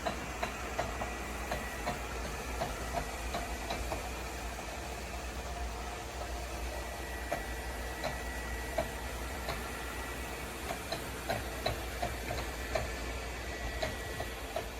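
Robot vacuum cleaner running: a steady motor and fan hiss with a faint hum, and light clicks scattered at irregular intervals.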